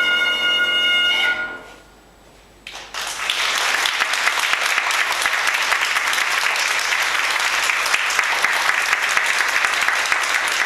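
A wind instrument holds the final note of the tune, which fades out about a second and a half in. After a brief pause, an audience breaks into steady applause.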